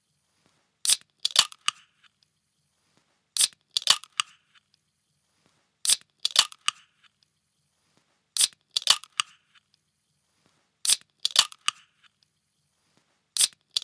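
A metal can being opened, the same sound repeated about every two and a half seconds. Each time there is a sharp click, then a short crackly hiss.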